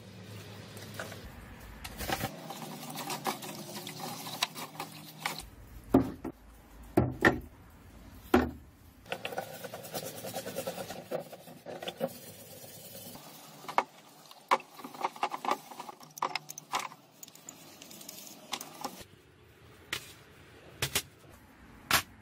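Metal parts of an old angle grinder being scrubbed with a stiff brush in a tub of soapy water, with repeated scratchy brushing and sharp knocks and clinks of the metal parts against the tub. Near the end there are a few sharp clinks as the parts are set down on a metal tray.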